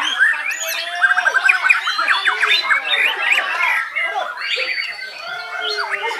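Several white-rumped shamas singing at once in competition: a dense, loud tangle of varied whistles, trills and chattering phrases, with a quick run of repeated notes about a second in.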